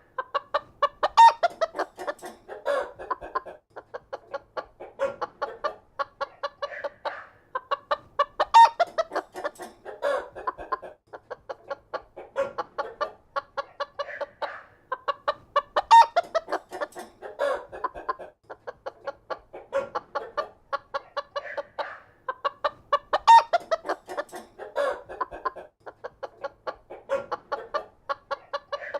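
A flock of chickens clucking continuously in a barn, many short calls overlapping, with a louder squawk now and then. The same stretch of about seven and a half seconds repeats as a loop.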